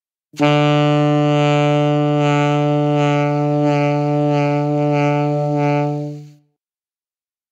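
Alto saxophone playing one long low note, held steady for about six seconds and then released, with silence before and after it.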